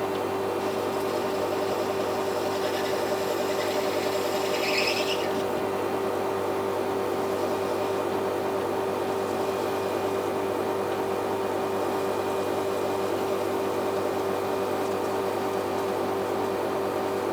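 Metal lathe running with a steady motor hum, turning down a shoulder on a workpiece; a brief higher-pitched scraping from the cutting tool about three to five seconds in.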